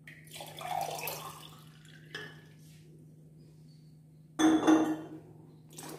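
Water being poured and glassware clinking as more water is measured out for the juice, with a louder clatter about four and a half seconds in. A steady low hum runs underneath.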